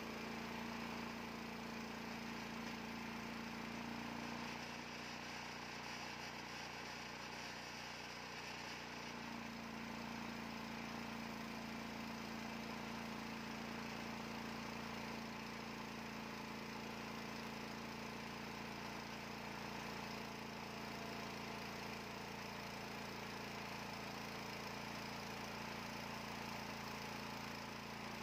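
Portable bandsaw mill running steadily as its blade saws lengthwise through a hardwood log. The engine note sags slightly about five seconds in and recovers near nine seconds.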